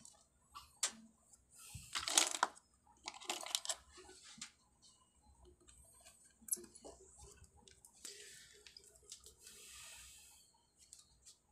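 Handling noise: irregular rustling, scraping and small clicks, loudest in a burst about two seconds in, with a longer soft rustle near the end.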